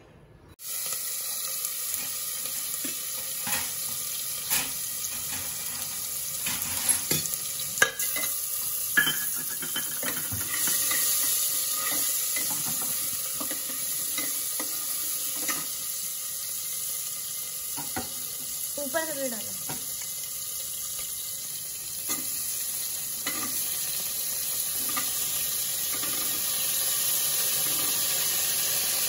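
Chopped tomatoes and green chillies sizzling in hot oil in a pressure-cooker pan, with a metal spoon clinking and scraping against the pan as they are stirred.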